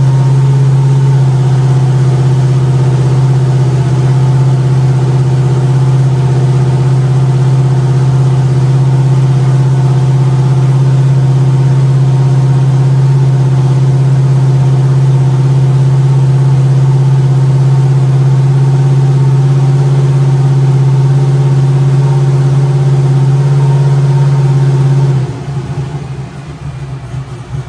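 Turbocharged methanol-burning engine of a Chevy Nova running at a steady speed with a constant low hum. Near the end it drops off and winds down unevenly.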